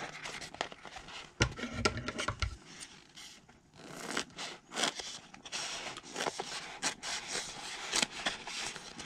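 A sheet of adhesive foam rubber being cut, heard as a run of short, crisp snipping and scraping strokes.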